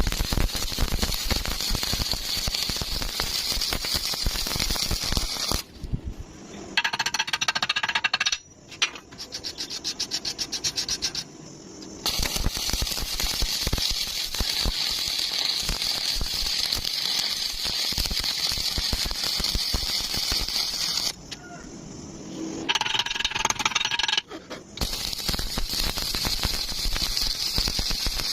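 Electric welding arc crackling and sputtering in long steady runs. These are broken three times by a few seconds of a higher pitched whine.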